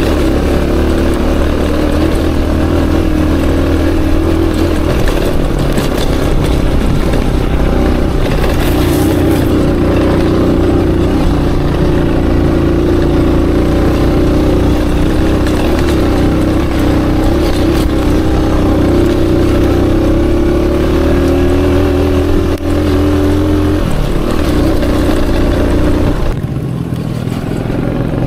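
Aveta Ranger Max motorcycle engine running under load as it is ridden off-road, its pitch rising and falling with the throttle. The engine note eases off near the end.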